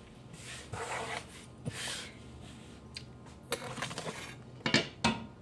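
Soft scraping and rustling as a stainless steel mixing bowl with a wire whisk is handled and lifted off a wooden counter, then two sharp clinks near the end.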